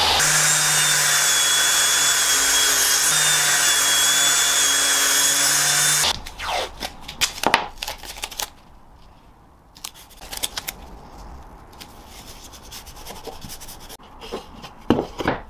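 Table saw running steadily with a low hum and a high whine while cutting a board on a sled, cutting off abruptly about six seconds in. Then short, sharp rasps of adhesive tape being pulled off the roll and torn, with light handling of pine boards on the bench.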